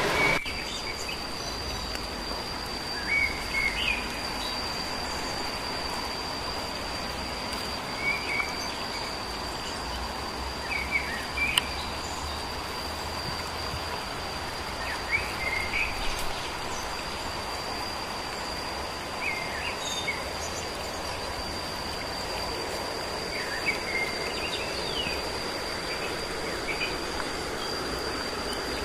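Forest ambience: a steady high-pitched insect drone with short bird chirps every few seconds over a soft hiss.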